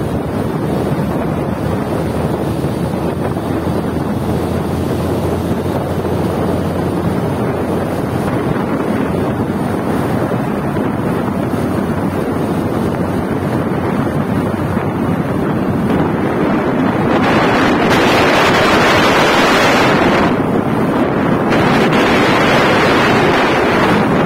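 Wind buffeting the phone's microphone while riding a two-wheeler at speed, a steady loud rush with road and engine noise underneath. The rush grows louder twice in the last third, as stronger gusts hit the microphone.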